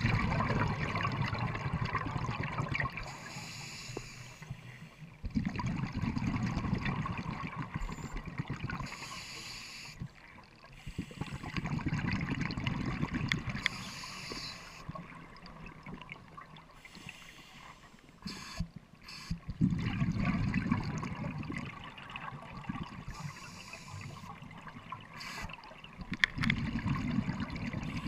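Scuba diver breathing through a regulator underwater: five long bursts of exhaled bubbles about every six seconds, with a softer hiss of inhaling between them.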